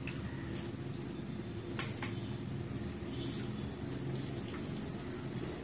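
Wet, squishing sounds of fingers mixing and squeezing rice with gravy on a plate, with a few sharp clicks about two seconds in, over a steady low hum.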